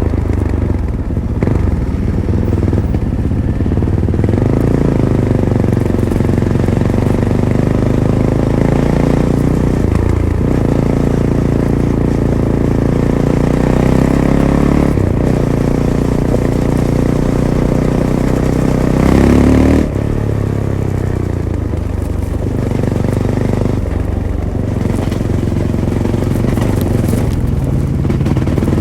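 Fantic Caballero 500's single-cylinder engine running through its stock Arrow exhaust under way, its pitch stepping up and down through gear changes and throttle. The revs climb to a peak about two-thirds of the way through, then drop suddenly.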